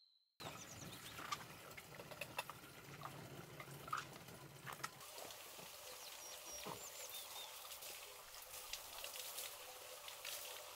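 Spring water running from a pipe spout and splashing, a faint steady trickle with scattered small clicks and drips.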